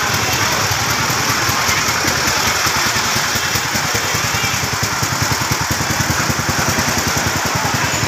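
An engine running steadily at idle, heard as a rapid, even low pulsing.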